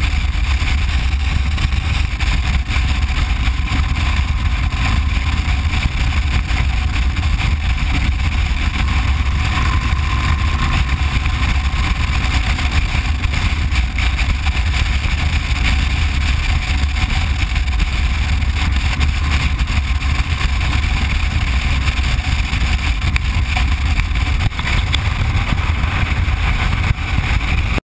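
Motorcycle cruising at steady road speed, heard from a camera on the bike: a deep, unbroken rush of wind on the microphone over the drone of the engine.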